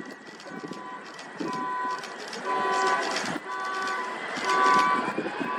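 A horn-like tone beeping about once a second, each beep about half a second long, over steady background noise.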